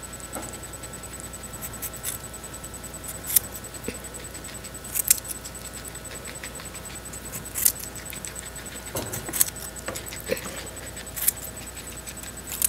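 Guinea pig biting and crunching a raw carrot held out to it by hand: sharp, crisp crunches at uneven intervals, every second or two.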